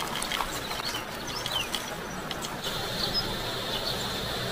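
Small birds chirping in short calls over a steady outdoor hiss. A thin, high, steady hiss joins a little past halfway.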